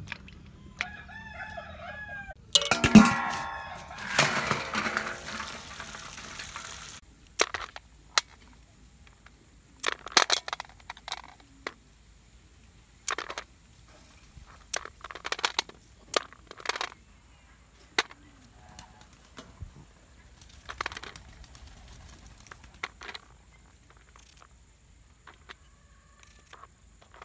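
A rooster crows loudly in the first few seconds, after chicken-like calls. Then come scattered sharp clicks and knocks as snail shells and cut carrot and cucumber pieces are set down on a steel plate.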